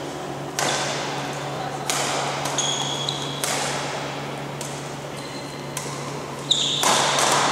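Badminton rackets striking a shuttlecock in a doubles rally: sharp cracks about a second apart, echoing in a large hall. Court shoes squeak briefly on the floor twice, about halfway through and near the end.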